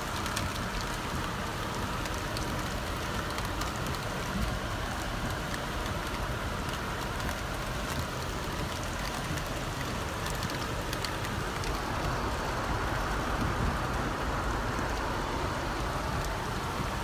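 Steady rain falling, with fine scattered drop ticks, heard from inside a car, and a low rumble underneath.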